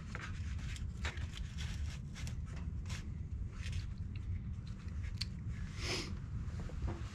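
Scattered small clicks and taps of hands handling an RC model airplane, over a steady low rumble of wind on the microphone. A brief rustle comes about six seconds in.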